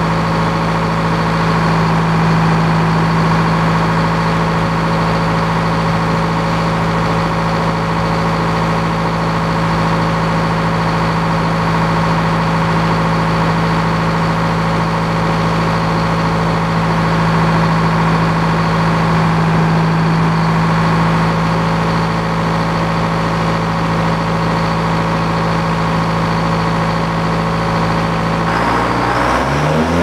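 Large circular sawmill blade cutting through a big oak log, over the steady drone of the engine that drives the mill. Near the end the engine's pitch rises sharply.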